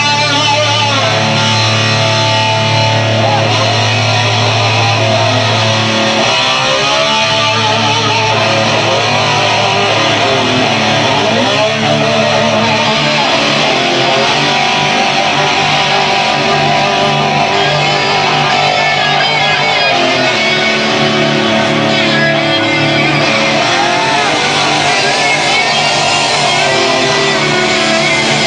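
Live rock band playing at full volume: electric guitar lines with wide vibrato and pitch bends over sustained bass notes.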